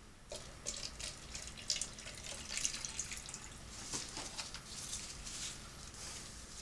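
Water splashing and pattering irregularly onto pepper plants and their soil as they are watered, starting about a third of a second in.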